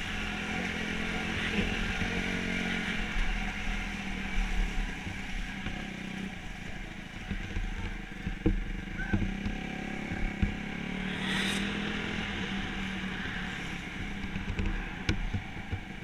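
Dirt bike engine running steadily at low speed, heard up close on board, with a few sharp knocks and rattles.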